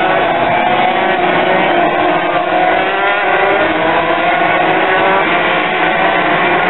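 A pack of Grand Prix racing motorcycles sweeps through a corner, many engines sounding at once. Their overlapping pitches rise and fall as the riders brake and accelerate out of the bend.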